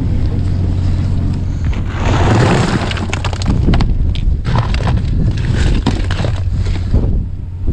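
Worn cardboard being handled and crumpled against a plastic box: a scraping rush about two seconds in, then a run of crackles and knocks. Under it the boat's engine drones steadily.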